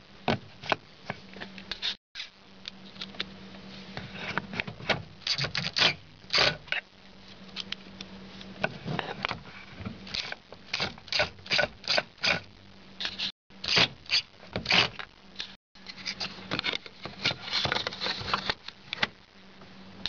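Hard plastic door trim being handled and pressed into place, and a screwdriver turning a screw into it: an irregular run of clicks, taps and scrapes, with a faint steady hum underneath.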